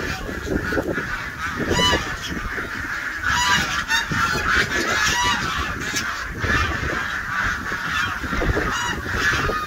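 A flock of domestic geese honking, short calls repeating again and again, often overlapping.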